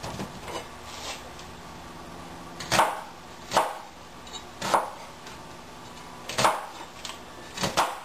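Knife chopping onion on a cutting board: a series of irregular knocks, a few faint ones at first, then about six louder strokes in the second half, two of them close together near the end.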